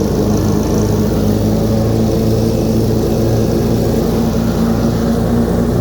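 Snapper 150Z zero-turn riding mower's 26 hp engine running steadily at full throttle with the cutting blades engaged, mowing grass.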